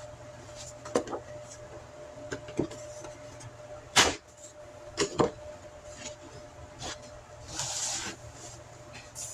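A sheet of drawing paper being handled and smoothed flat on a surface: scattered taps and knocks, a sharp click about four seconds in, and a short rustling slide near eight seconds, over a faint steady hum.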